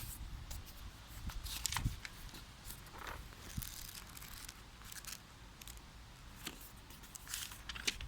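Packaging and tool being handled during unpacking: faint, scattered rustling and small clicks and knocks.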